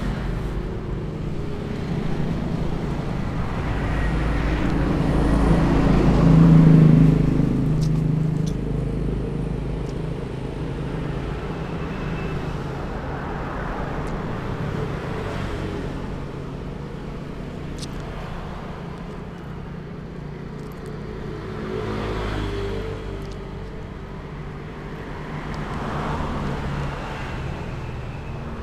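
Motor vehicle engines running in road traffic, one swelling loudest as it passes about six to seven seconds in, with smaller swells near the end.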